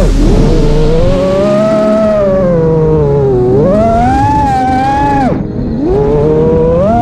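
FPV quadcopter motors whining, the pitch rising and falling with the throttle; the whine drops away sharply about five seconds in, then climbs back up.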